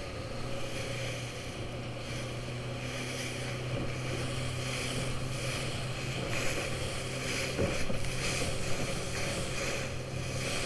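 A small motorboat's outboard engine running with a steady hum, under wind and water noise.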